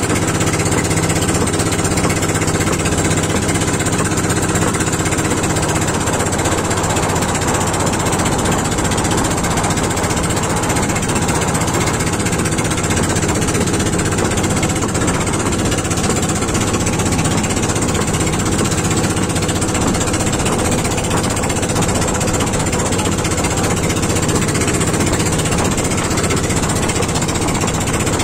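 Engine of a motorised outrigger boat (bangka) running steadily at cruising speed, a loud, fast, even putter that does not change, with water hissing and splashing along the hull.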